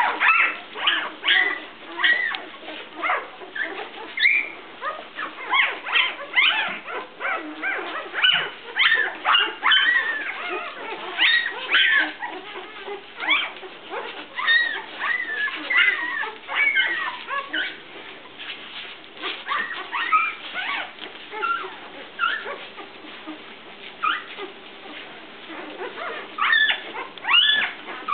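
Newborn golden retriever puppies, only days old, squeaking and whimpering in many short high cries that overlap one another while they nurse and crawl around their mother. The cries are busiest in the first half and again near the end.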